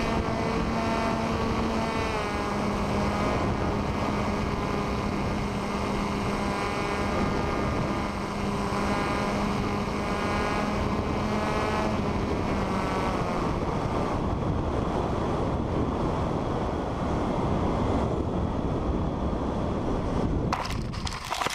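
Radio-controlled plane's motor and propeller running as a steady hum under heavy wind noise. The hum dips slightly in pitch about two seconds in and fades out around thirteen seconds, leaving only the wind. A few sharp knocks come near the end, and then the sound drops away.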